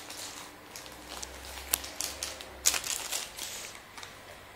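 Clear plastic packaging bag crinkling and crackling as it is handled, with a couple of sharper crackles in the middle.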